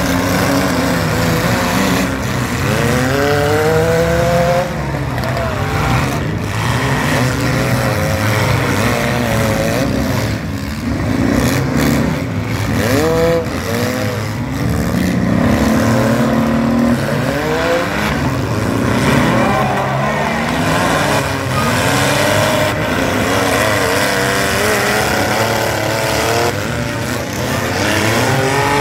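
Several compact demolition-derby cars' engines revving hard, again and again, their pitch rising and falling, with a few sharp knocks around the middle.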